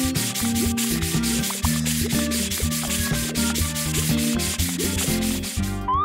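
Cartoon scrubbing sound effect: a sponge rubbing in quick, regular strokes, over background music.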